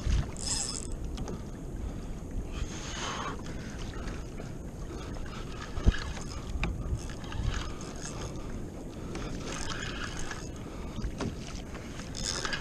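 Water sloshing and lapping against a plastic fishing kayak's hull, with several short splashy bursts and one sharp knock on the hull or gear about six seconds in.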